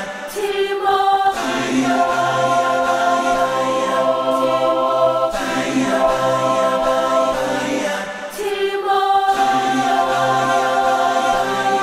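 Background music: a choir singing long, held chords that shift slowly every few seconds.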